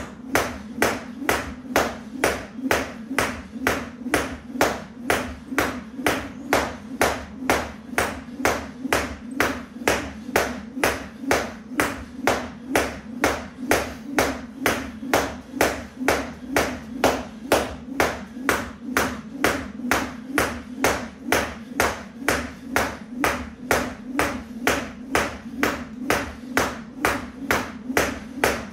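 Skipping with a jump rope: the rope and the landing feet slap the exercise mat in a steady, even rhythm of sharp hits.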